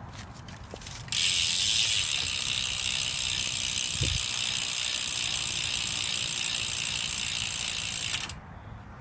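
BMX rear cassette hub freewheeling, its pawls clicking so fast that they blend into a steady, high-pitched buzz. It starts suddenly about a second in and cuts off about seven seconds later.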